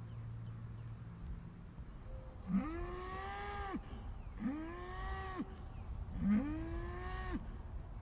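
A cow mooing three times, about two seconds apart: long, drawn-out moos that rise sharply at the start, hold one pitch, then break off.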